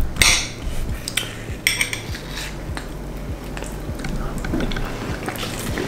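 Metal spoons clinking and scraping against small glass cups as two people eat a layered yogurt and watermelon dessert, with a few sharp clinks at irregular moments.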